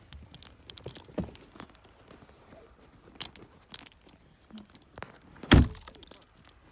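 Scattered small clicks and rustling, then a car door shut with a single loud thump about five and a half seconds in.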